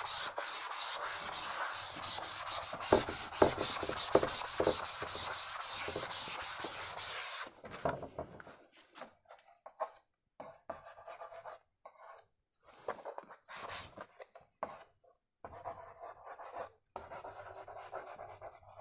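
A chalkboard being wiped clean with rapid back-and-forth rubbing strokes for about seven seconds. The rubbing stops, and chalk is then heard in short, separate scratching strokes as words are written on the board.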